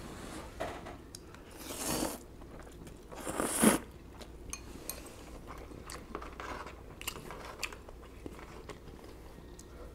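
Ramen noodles being slurped in two pulls, the second louder, followed by soft chewing with scattered faint clicks.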